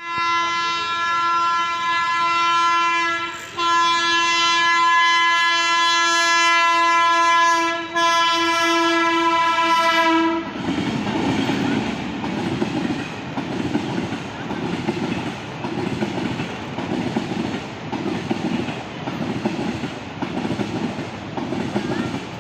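Indian Railways locomotive horn sounding one long, steady blast for about ten seconds, broken by two short dips. The train then runs past the level crossing with a rhythmic clatter of wheels over the rail joints, about one beat a second.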